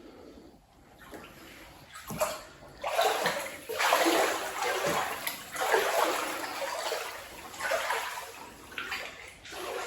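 Deep floodwater sloshing and splashing in repeated surges about once a second, as someone wades through it; it starts about two seconds in.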